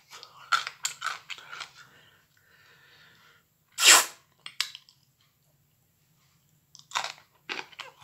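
A person chewing microwaved broccoli with wet, crunchy mouth clicks in two spells, and a short loud rush of breath about four seconds in.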